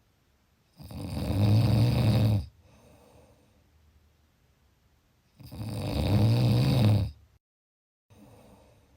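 A person snoring: two long, low-pitched snores about four and a half seconds apart, with quiet breathing between them.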